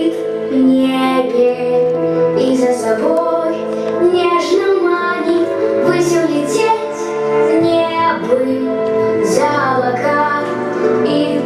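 A female voice singing a slow, held melody over steady instrumental accompaniment.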